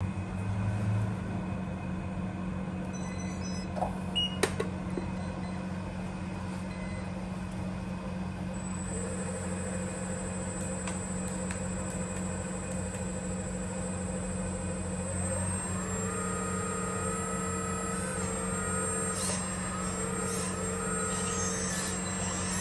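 Hydraulic system of a 1/12-scale remote-control CAT 336GC excavator running: the electric pump hums steadily, with a click about four seconds in. A higher whine joins about nine seconds in, and in the last several seconds the tones rise and shift in pitch as the boom is raised and the upper body turns.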